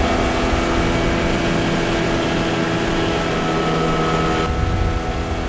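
A 30 hp outboard motor running at speed, driving a small open boat across the water: a steady drone over the rush of water and wind. Near the end it turns duller and a little quieter.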